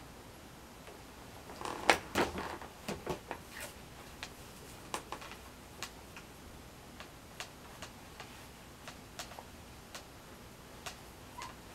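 Irregular light clicks and taps: a quick cluster about two seconds in, then single clicks at uneven gaps of roughly half a second to a second.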